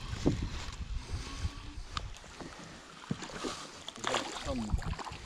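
Scattered knocks and clicks on a drifting bass boat over a low rumble, with no motor running.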